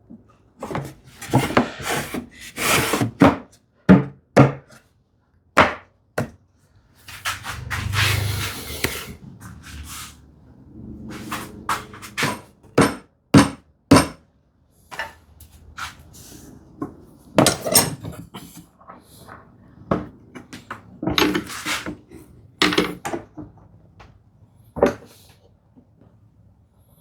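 Hand woodworking knocks and taps as a glued mortise-and-tenon frame and its plywood panel are fitted together: irregular sharp wooden knocks and clatter, with a longer rubbing noise about eight seconds in.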